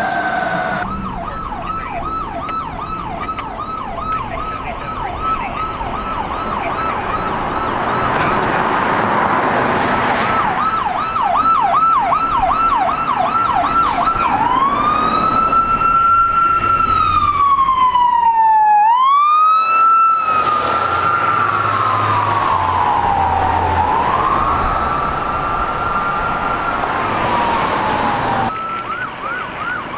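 Electronic sirens of emergency vehicles passing on a street: a fast yelp, then a slow wail rising and falling several times from about halfway, switching back to the fast yelp near the end, over passing traffic.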